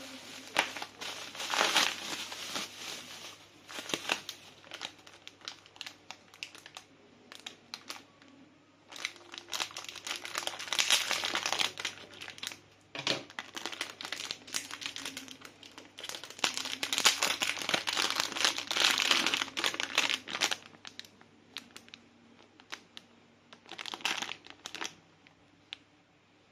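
Plastic packaging crinkling and rustling in irregular bursts, with scattered clicks and taps, as a boxed 20 W Apple iPhone charger is unwrapped by hand.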